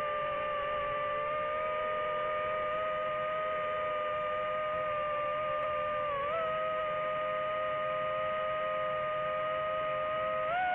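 Quadcopter drone's propeller motors whining steadily in several close tones, the pitch briefly rising a little about six seconds in and again near the end as the throttle changes.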